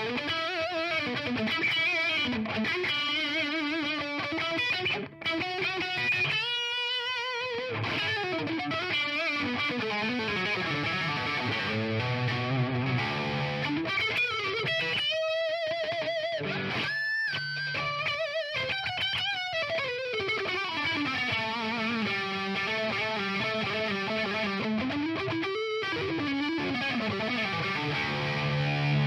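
Headless multiscale six-string electric guitar on its single-coil neck pickup, playing a lead line with wavering vibrato on held notes and bent notes, with a very Strat-like tone.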